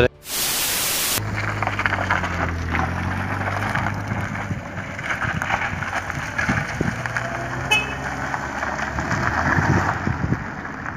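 A car engine running at a steady low pitch under a rough crackling noise, after about a second of loud hiss at the start. A brief high chirp comes about eight seconds in.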